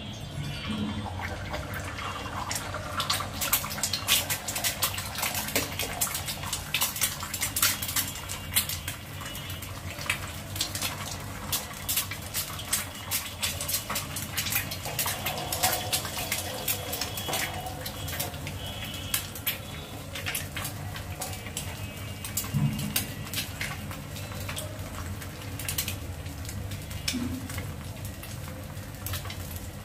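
Eggs frying in hot oil on a black iron griddle (tawa), a steady sizzle full of irregular crackles and spitting pops, busiest in the first several seconds after the eggs go in.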